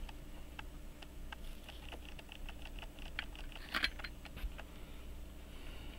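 Faint, scattered small clicks and ticks of steel tweezers touching and handling metal parts of a pocket watch movement, with a brief cluster of clicks about four seconds in.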